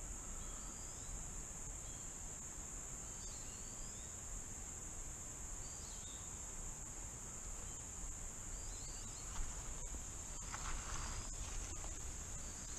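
Steady high-pitched drone of an insect chorus, with a few faint short chirps over it and a brief rustle about ten seconds in.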